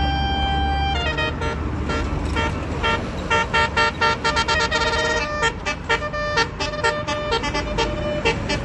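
Bus 'telolet' basuri musical horn: it holds one note for about a second, then plays a fast, choppy melody of short horn notes.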